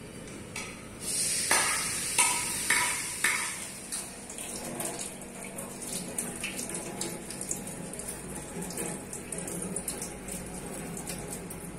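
Tap water running into a stainless steel sink and splashing over a smoked fish being rinsed under it. Several louder surges come between about one and three seconds in, then a steadier patter of splashing.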